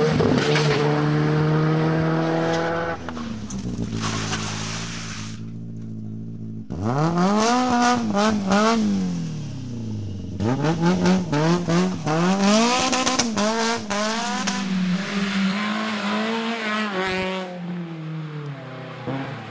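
Several rally car engines in turn, one after another, each revving hard with its pitch climbing and dropping sharply through the gear changes. Sharp crackles run through the middle.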